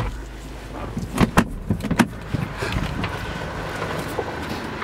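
A car's glove box lid clicking shut, then a quick cluster of knocks and clunks from handling inside the car cabin, followed by a steady background hum.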